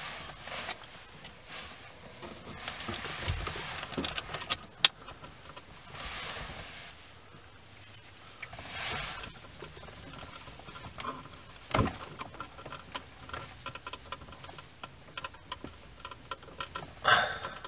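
Scattered handling noises of small parts being fetched and handled: rustling and light clicks, with two sharp clicks about five and twelve seconds in and a short louder burst near the end.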